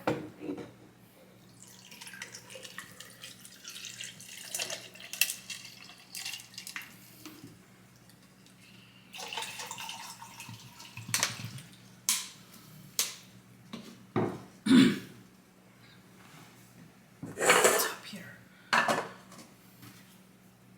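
Close-up eating and drinking sounds: water sipped from a cup and the cup handled, with scattered clicks, knocks and short noisy stretches of food and packaging being handled and eaten.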